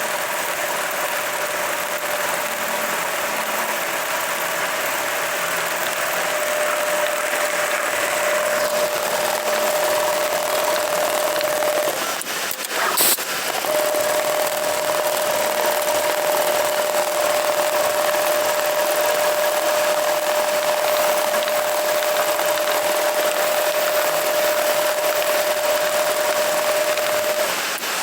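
Lanmax LM 1390G-HL programmable pattern sewing machine running, a steady mechanical noise with a constant whine. It stops briefly near the middle with a sharp click, then runs on.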